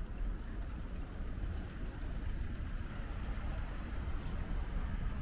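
City street traffic: a steady rumble of passing cars.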